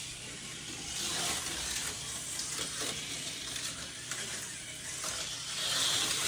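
TYCO HO-scale slot cars running on plastic track, an even hissing whir that swells about a second in and again near the end as cars pass close by.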